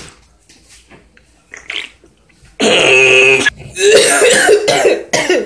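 A young man coughing and choking hard on a drink: about two and a half seconds in, one long, loud, strained cough, then a run of rough coughs and throat-clearing.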